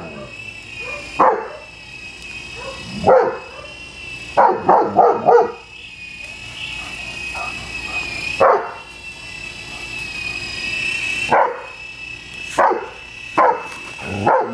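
German Shepherd barking at a hovering RC toy helicopter: about eleven single barks at irregular gaps, with a quick run of four about five seconds in. Under the barks runs the helicopter's steady high-pitched rotor whine, wavering slightly in pitch.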